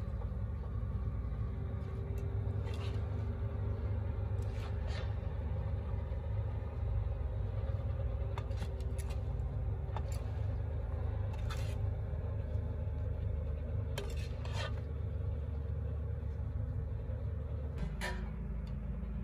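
Metal ladle stirring cooked rice in a large aluminium pot, with a scattering of short scrapes and knocks of metal on the pot's side over a steady low rumble.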